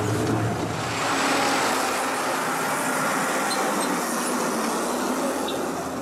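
Old converted school bus running on a rough dirt road. Inside the cabin there is a low engine drone; about a second in this gives way to a broad, steady noise of engines and tyres on the track.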